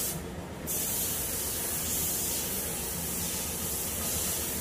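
Air-driven gravity-feed spray gun hissing as it sprays paint. The hiss cuts out briefly just after the start as the trigger is released, then comes back and holds steady.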